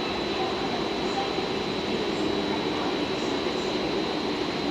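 JR Freight EF510 electric locomotive rolling slowly through the rail yard: a steady train running noise, with a thin, steady high tone throughout.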